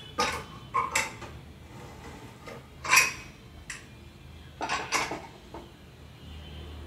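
Metal pots and utensils clanking: several sharp knocks and clinks, the loudest about three seconds in.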